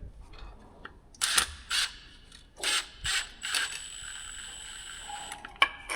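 Cordless drill-driver working on screws: several short bursts, then a steady high whine for about two seconds.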